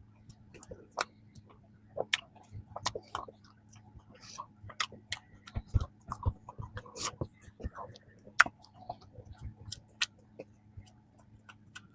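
Close-miked chewing of a flaky, crisp strawberry danish: irregular crackly crunches and small wet mouth clicks.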